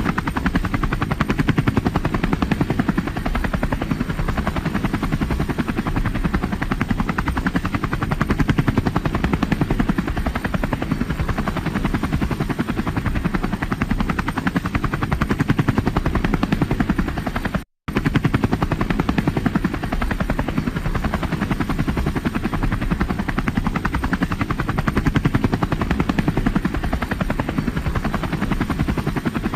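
Helicopter in flight, its rotor blades chopping in a fast, steady rhythm. The sound cuts out for a split second about two-thirds of the way through, then resumes unchanged.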